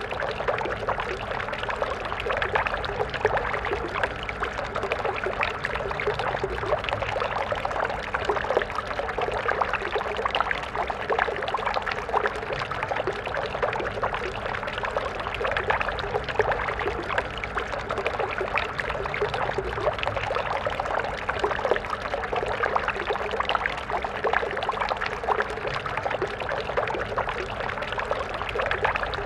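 A small stream flowing steadily over rocks, a continuous dense babble of splashing and trickling water.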